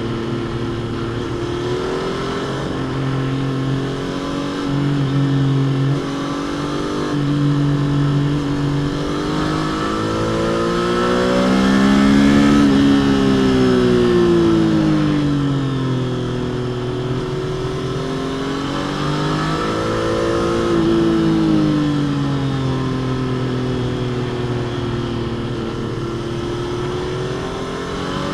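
Stock Triumph Trident 660 inline three-cylinder engine and exhaust under way. The engine note holds fairly steady at first, then climbs and falls away twice, about halfway through and again near two-thirds through, as the throttle is opened and rolled off.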